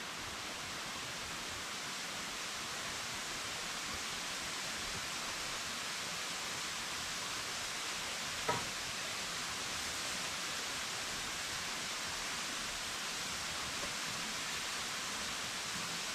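Steady rushing hiss of running water from a nearby waterfall, with a single sharp knock about eight and a half seconds in.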